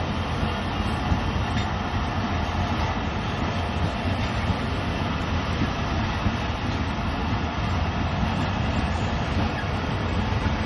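Pakistan Railways passenger coaches passing close by at speed: a steady rumble of steel wheels on the rails.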